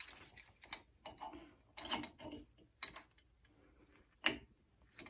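Light, irregular metallic clicks and clinks of brake pad retaining pins and the pad spring clip being handled and slid into a Brembo caliper from a Hyundai Genesis Coupe, the loudest click about four seconds in.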